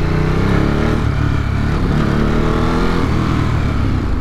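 Ducati Monster's V-twin engine accelerating through the gears. The pitch rises, drops at an upshift about a second in, rises again and drops at a second upshift about three seconds in.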